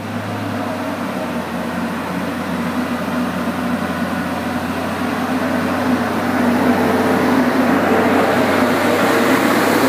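Northern Class 144 Pacer diesel railcar running along the platform past the listener: a steady diesel hum with wheel and rail noise that grows louder from about halfway as the cab and first carriage pass close by.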